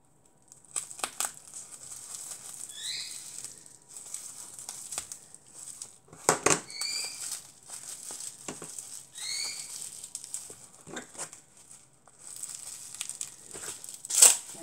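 Plastic bubble wrap being crumpled and pulled off a small model car by hand: irregular crinkling and crackling with sharp snaps, the loudest about six seconds in and just before the end, and a few short rising squeaks between them.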